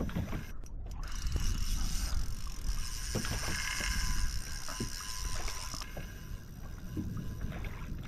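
Spinning reel's drag buzzing steadily for several seconds as a heavy hooked fish pulls line off against it, over the low rumble of wind and chop.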